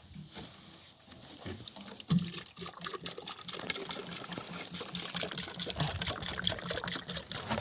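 Something being poured: a dense, trickling patter of many small ticks that starts about two seconds in and keeps going.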